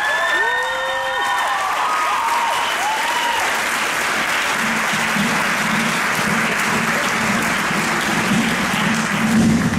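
Audience applauding steadily, with cheering calls rising and falling over it in the first couple of seconds. A low steady note comes in under the clapping about halfway through.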